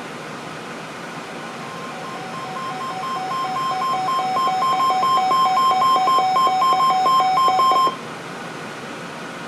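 Weather alert radio's alarm sounding for an incoming warning: rapid two-tone beeping that grows louder over a few seconds and cuts off suddenly, over steady radio hiss.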